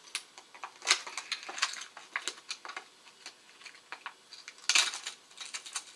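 Hard plastic crankbait box being handled and pried open: a run of small plastic clicks and crinkles, with a louder snap about a second in and another near the end.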